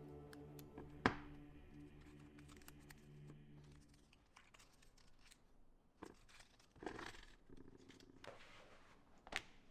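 Faint hand-working sounds: scattered small clicks and short scraping or tearing noises. A low steady hum underneath fades out about four seconds in.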